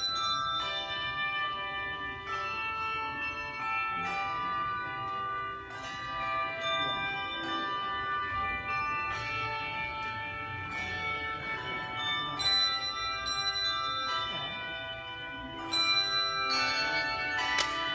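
Tuned bells of several pitches struck one after another, each note ringing on and overlapping the next.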